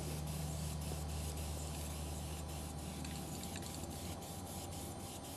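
Aerosol spray-paint can hissing as paint is sprayed onto the side of a freight car, the hiss broken by many short pauses between strokes. A steady low hum lies underneath.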